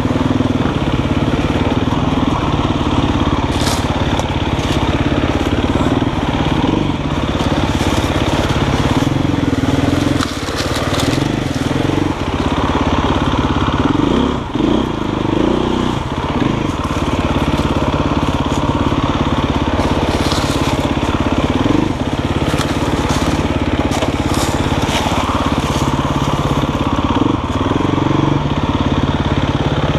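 Dirt bike engine running at low speed, the revs rising and falling, while brush and branches crackle and scrape against the bike.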